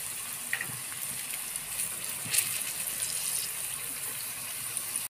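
Sliced saba bananas frying in hot oil in a pan: a steady sizzle with a few sharp crackles.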